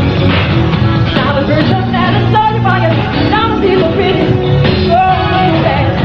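Live band playing an upbeat funk-pop song with electric guitar and drums under a male lead vocal. The recording is dull and low-fidelity, with no treble.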